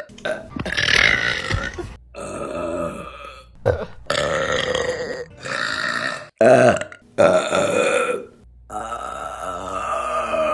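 Women burping, one burp after another, about eight in a row with abrupt cuts between them. Most are short; the last is a long, drawn-out burp of about three seconds.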